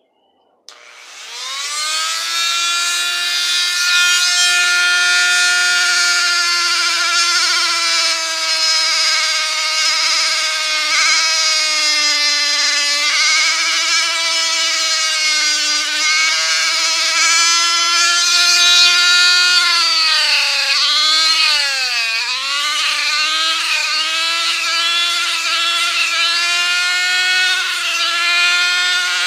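Flexible-shaft rotary tool with a sanding drum starting up about a second in, rising to a steady high whine as it sands the edge of a wooden letter. Its pitch dips and recovers several times about three quarters of the way through as the drum is pressed into the edge.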